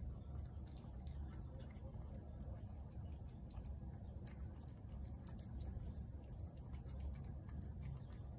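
A cat chewing and lapping wet food from a plate: a steady run of small, quick wet clicks and smacks over a low, steady rumble.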